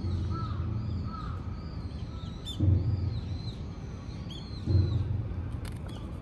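Crows cawing in a run of short, arched calls, over dull low thumps about two seconds apart.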